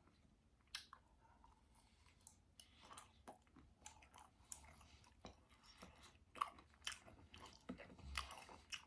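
Close-miked mouth sounds of a person chewing crisp bacon: faint, irregular crunches and wet smacks, sparse at first and coming more often after a couple of seconds.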